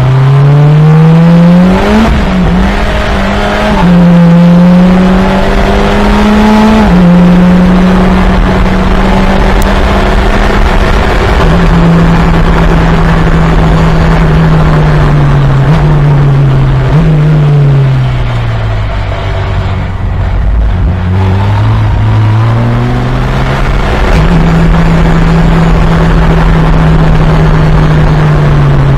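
Fun Cup race car engine under racing load. It accelerates and shifts up through the gears in the first seven seconds or so. It then holds speed, slows with two quick throttle blips on downshifts around the middle, and accelerates again with another upshift, running steady near the end.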